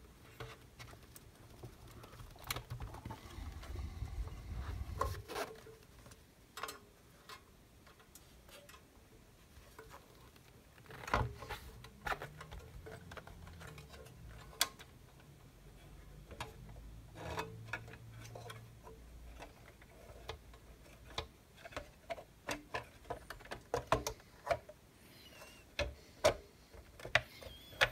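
Scattered light clicks and taps of sheet metal and plastic as an oscilloscope's metal power-supply assembly and its cables are handled and seated back into the plastic case, with stretches of soft low handling noise. The clicks come more often near the end.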